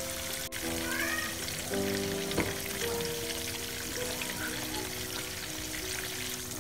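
Fish steaks shallow-frying in mustard oil, a steady sizzle under background music with long held notes. A single short tap comes about two and a half seconds in.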